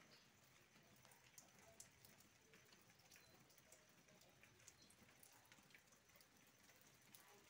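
Near silence: very faint rain with scattered drips.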